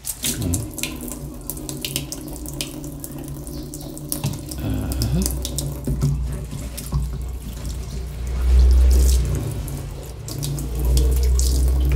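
Thin stream of water running from a stainless steel kitchen faucet into a stainless steel sink, with splashing as hands and a sponge are soaped and rubbed under it. Louder low rumbles come about eight seconds in and again near the end.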